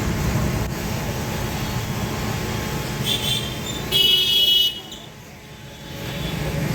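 Steady outdoor background rumble, broken by two short high-pitched horn-like tones: a faint one about three seconds in and a louder one about four seconds in. After the second tone the background drops noticeably quieter for about a second and a half, then returns.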